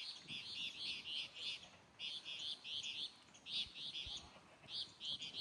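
A bird calling: runs of short, high chirps repeated about four a second, broken by brief pauses.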